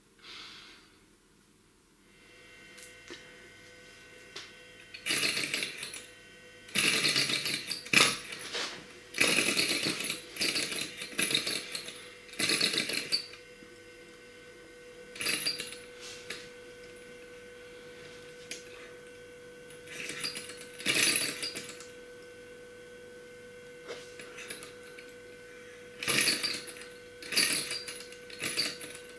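A small ENJOMOR gamma-type Stirling engine, turned over by hand at the flywheel, clatters in short bursts of a second or two and then stops each time. It will not keep running: the piston has worked loose on its conrod in the heat. A faint steady high tone sounds underneath.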